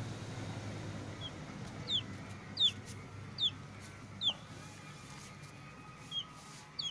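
A bird chirping: four short, high, falling chirps about a second apart through the middle, with a few fainter ones around them, over a low steady hum.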